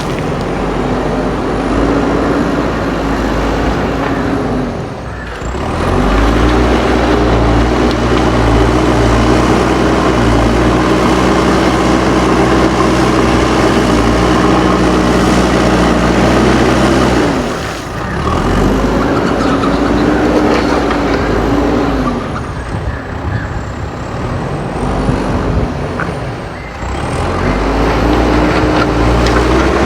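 JCB backhoe loader's diesel engine working hard. It revs up and holds high for several seconds, eases off, and revs up again, three times over.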